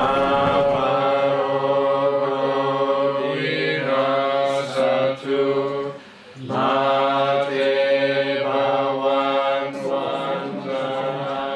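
Buddhist monks and lay congregation chanting together in a steady, near-monotone recitation, with a short pause for breath about six seconds in.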